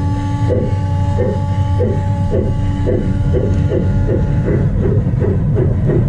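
LGB garden-railway steam locomotive chuffing as it runs, the chuffs quickening from under two to about four a second, over the steady drone of its motor and gears. A steady hum of several tones runs under it and stops about two-thirds of the way through.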